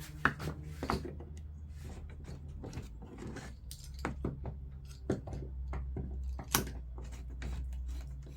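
Sharp clicks and knocks of metal clamps and a steel jig being handled and tightened on a wooden table top, several single strikes spread out over a steady low hum.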